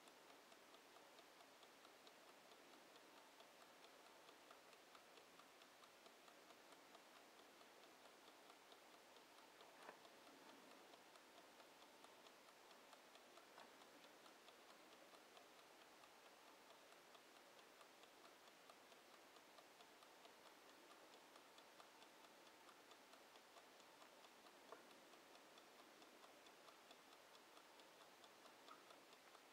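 Faint, even ticking of a wind-up mechanical kitchen timer counting down, with a couple of slightly louder clicks.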